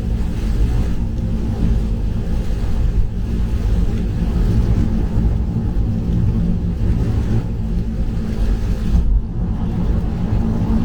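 Cabin noise of a Mazda3 cruising on an expressway in heavy rain: a steady low road-and-engine rumble with the hiss of rain and tyre spray coming through a slightly open window.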